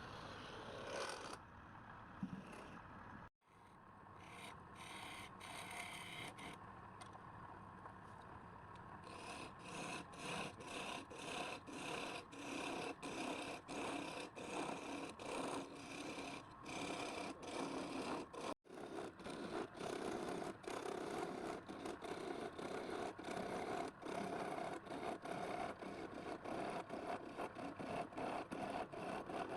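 Hand tool rubbing back and forth over a surface in steady strokes, about two a second, as in sanding, filing or scrubbing, with two brief sudden breaks.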